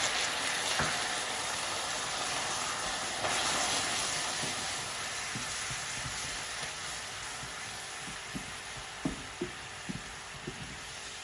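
Hot golden caramel sizzling and bubbling hard just after water has been poured onto it, stirred with a silicone spatula in a small saucepan. The hiss is strongest at first and slowly eases, with a few soft pops near the end.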